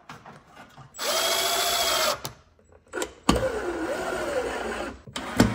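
Cordless drill driving the wing screws of an old-work electrical box, swinging the wings out to clamp the box in its cut hole. It runs steadily for about a second, then after a pause runs again for nearly two seconds with its pitch sagging and rising under load, with a sharp click at the start of the second run and another near the end.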